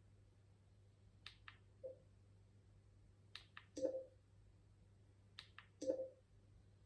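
Remote-control buttons clicked in three short groups about two seconds apart, each group two light clicks followed by a louder, duller press, as on-screen prompts are confirmed.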